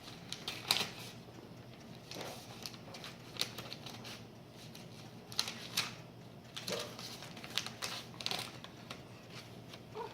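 Paper being crunched by hand: scattered, irregular crackles, some in quick clusters, over a faint steady hum.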